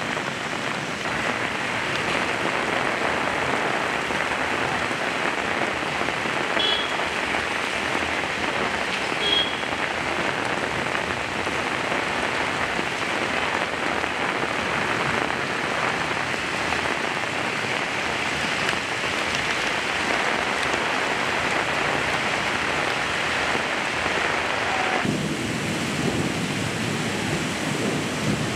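Heavy rain pouring onto a street: a dense, steady hiss of rain splashing on the road. Two short high chirps sound about seven and nine seconds in, and near the end the sound turns lower and fuller.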